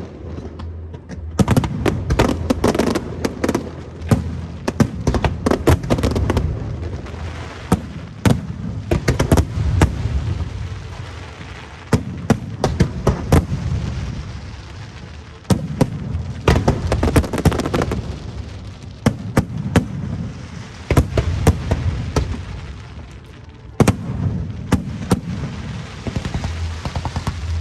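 Aerial fireworks bursting in rapid volleys of sharp cracks and booms. They come in waves a few seconds apart, each trailing off in a rumbling echo.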